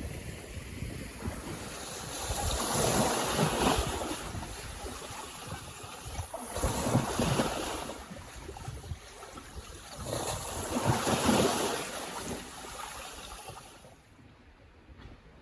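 Lake Ontario waves breaking and washing onto the beach in three swells a few seconds apart, with some wind noise on the microphone. The sound dies down near the end.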